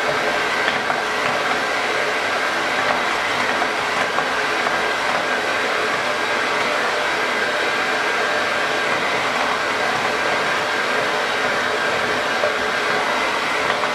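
Electric hand mixer running steadily, its beaters churning a thick mixture in a stainless steel bowl, with a thin steady high whine from the motor.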